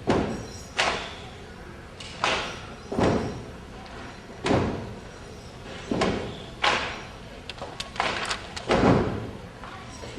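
Bamboo poles of a Singkil dance clapped together and knocked on the floor: about nine sharp claps at uneven spacing, some in quick pairs, each echoing briefly.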